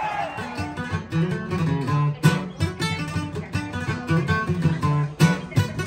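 Acoustic guitars playing together: plucked notes over a strummed rhythm, with hard strums about two seconds in and again near the end.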